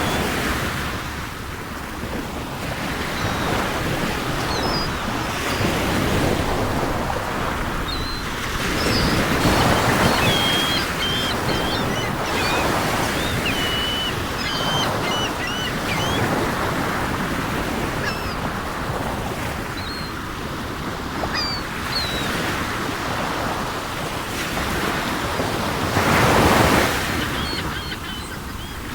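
Sea surf washing onto the shore, swelling and fading in slow surges, the biggest about ten seconds in and near the end. Seagulls call over it with short, repeated cries through the middle.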